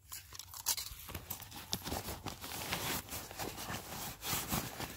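Irregular rustling and crinkling of camping gear being handled, with many small crackles.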